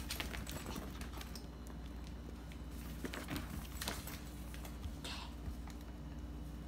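Yorkshire terrier puppy moving about on a vinyl floor: scattered light taps and clicks of its claws and cone collar, over a steady low hum.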